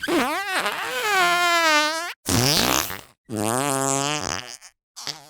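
Cartoon fart sound effects played one after another, parted by brief silences. The first is a long, wavering pitched fart of about two seconds, followed by two shorter ones, with another starting near the end.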